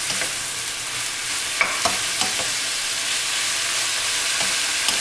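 Leftover bulgogi beef with mushrooms and vegetables sizzling steadily in a lightly oiled wok as it is stir-fried with two wooden spatulas. Several light knocks of the spatulas against the pan come through the sizzle.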